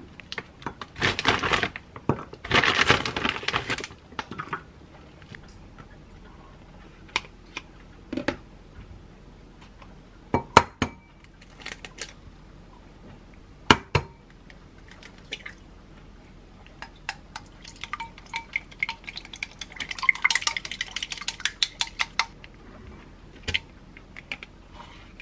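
Eggs cracked one after the other against the rim of a glass mixing bowl: two sharp knocks a few seconds apart. Then a few seconds of quick, light clinking of a utensil in the glass bowl as the eggs are beaten, with rustling of packaging and containers early on.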